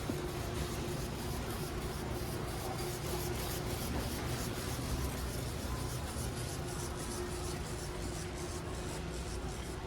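Warehouse-store ambience: a steady low hum with a faint held tone in it, and faint regular ticks in the high end.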